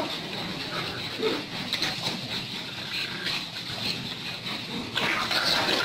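A group of pugs playing and wrestling on a concrete floor, with scuffling and dog noises, louder about five seconds in. A faint steady high tone runs underneath.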